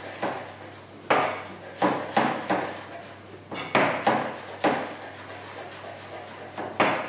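Kitchen knife chopping fresh flat-leaf parsley finely on a chopping board: about ten sharp knocks of the blade on the board, spaced unevenly.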